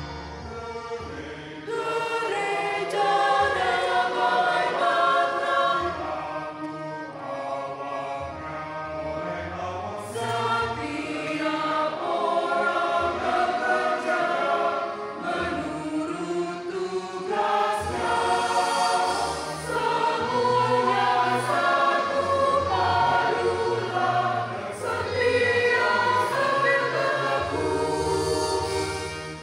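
Mixed church choir singing a hymn in Indonesian, in parts, phrase after phrase with short breaks between them.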